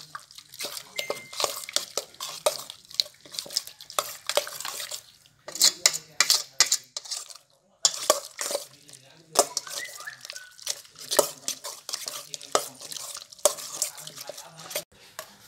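Raw beef chunks being mixed by hand in a stainless steel bowl: frequent clanks, knocks and scrapes against the metal bowl, with a brief pause about seven seconds in.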